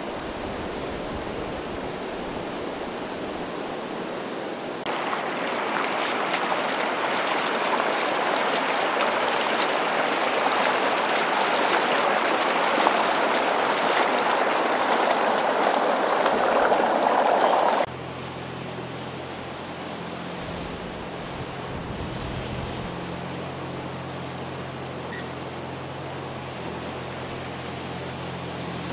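Floodwater rushing steadily. About five seconds in, a louder rush and splash of water in the street, which cuts off abruptly after about thirteen seconds. It is followed by a pickup truck's engine humming low under the wash of water as the truck drives through deep flood water.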